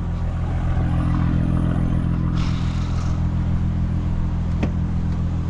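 A car engine idling: a steady, even low drone. A short rustling hiss comes a little past halfway, and a single sharp click comes about three-quarters of the way through.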